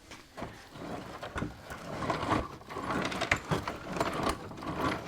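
Irregular clicks, knocks and rattles from a truck seat and its metal seat base being handled and moved.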